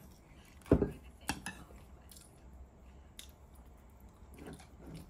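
A heavy black earthenware ttukbaegi pot set down on a wooden table with a thud just under a second in. About half a second later comes a sharp clack, followed by a few lighter clinks of the wooden spoon against the pot.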